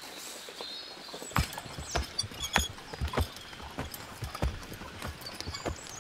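Horse hooves clip-clopping at a walk, turning to heavier, irregular thuds about a second and a half in as the horse steps onto wooden bridge planks.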